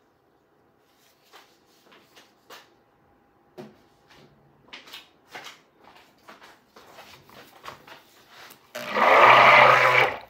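A few faint handling clicks, then about three-quarters of the way in an immersion stick blender runs in one short burst of about a second and a half in raw soap batter, blending the batter.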